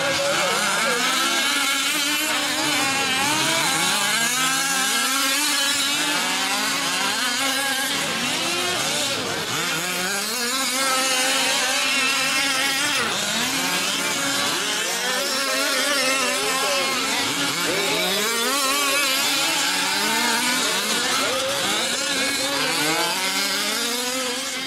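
Several 5th-scale RC off-road trucks' small two-stroke gas engines revving up and down out of step with one another as they race.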